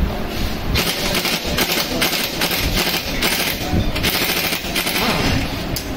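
Pneumatic impact wrench hammering on a motorcycle's rear axle nut, a fast loud rattle starting about a second in and running with brief pauses.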